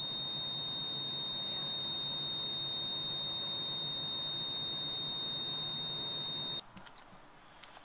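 A steady, high-pitched electronic tone held over a low hum, both cutting off suddenly about six and a half seconds in.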